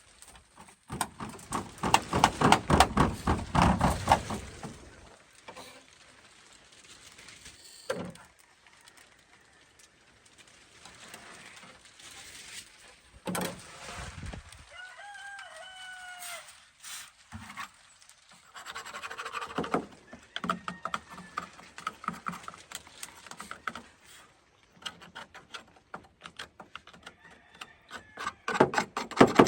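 A chicken calls briefly about halfway through, a short pitched call with a couple of rises and falls. Around it are clattering and rubbing sounds of tools and chainsaw parts being handled, loudest in the first few seconds and again near the end.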